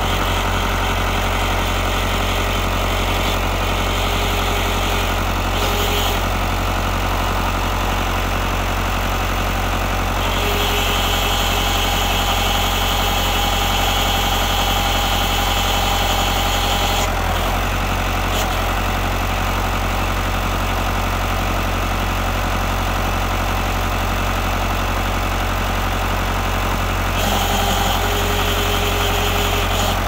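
Massey Ferguson MF50E backhoe's Perkins diesel engine running steadily.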